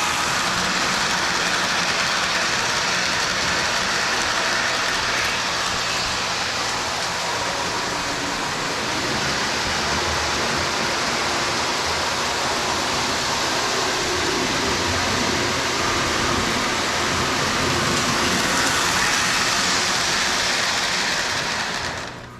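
Lionel O-gauge CP Rail freight train running on three-rail track: the MPC-era locomotive's motor and a long string of cars rolling steadily. The sound cuts off suddenly near the end.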